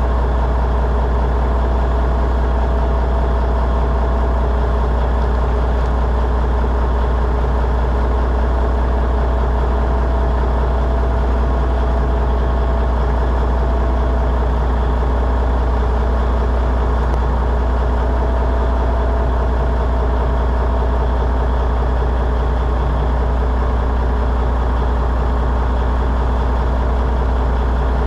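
A large engine idling steadily, with a deep, even hum that does not change.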